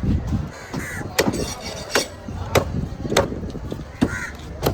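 A blade chopping through fish onto a cutting block, a series of sharp strikes about every two-thirds of a second.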